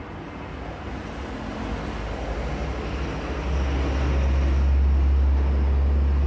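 Low rumble of a motor vehicle's engine, growing louder over the first few seconds and then holding steady.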